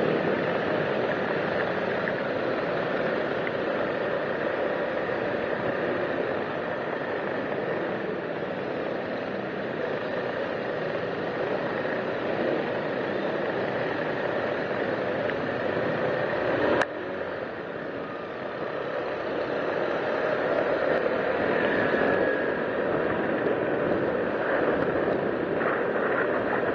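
Motor scooter riding along a street: steady engine and road noise with a rushing hiss over it. A sharp click about seventeen seconds in, after which the sound is a little quieter for a few seconds.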